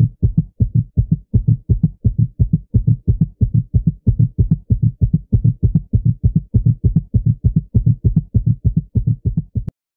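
Fast heartbeat sound effect: low double beats, about two and a half a second, steady throughout and cutting off abruptly near the end.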